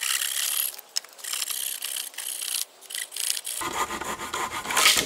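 Rope being pulled tight around wooden poles while a lashing is tied, rasping against the wood in several long strokes, the last one the loudest.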